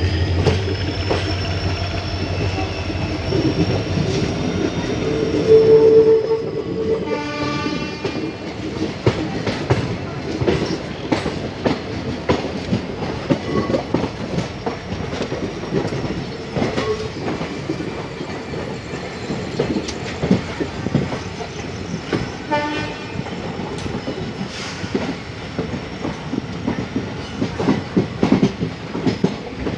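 Passenger train running at speed, heard from an open coach doorway: a steady rumble with a fast clickety-clack of wheels over rail joints. A short horn blast sounds about six seconds in, and another about twenty-two seconds in.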